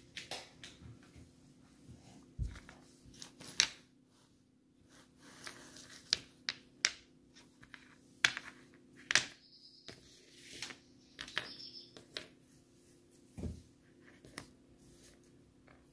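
Scattered light taps and clicks of paper-wrapped Maoam Bloxx chews being set down and slid about on a wooden tabletop by hand, coming irregularly with short pauses between them.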